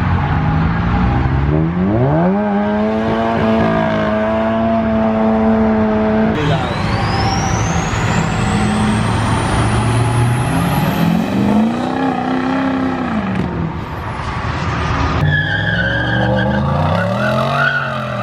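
A car doing a burnout: the engine revs up about two seconds in and is held high for several seconds, then drops and is revved up and down several more times, with tyres squealing throughout.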